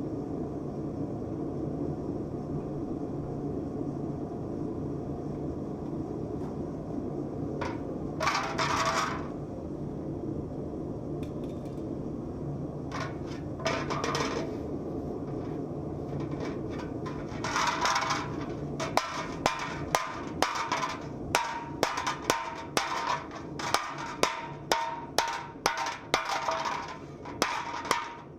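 Hammering a copper bowl: steady, regular blows on the copper sheet, each with a short metallic ring, starting about two-thirds of the way in, over a steady low rumble. Before the blows there are a few short scraping or hissing bursts.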